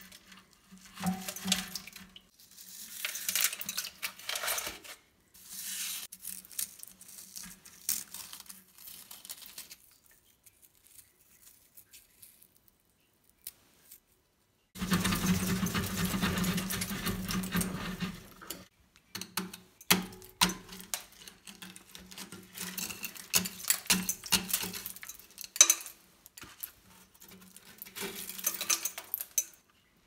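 Crusted limescale being scraped and broken off a water heater's heating element by hand, brittle flakes crunching and clattering down in irregular bursts, with a few seconds' pause a third of the way in.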